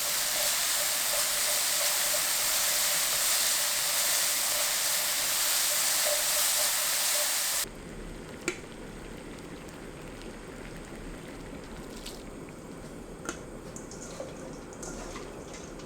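A loud, steady hiss of cooking in the kitchen that cuts off abruptly about seven and a half seconds in. It is followed by a much quieter, low hiss with a few light clicks.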